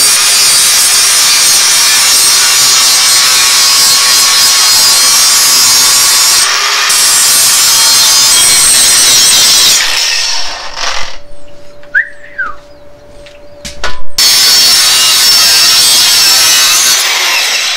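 Milwaukee cordless angle grinder grinding into a steel bike frame, a steady loud grinding. About ten seconds in, the grinding stops for a few seconds while the disc spins on more quietly. It then bites into the metal again until near the end.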